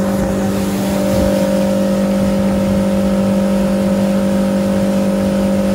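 Yamaha 50 hp outboard motor running steadily at speed, driving the speedboat, a steady even hum that holds one pitch throughout, over the rush of water and wind.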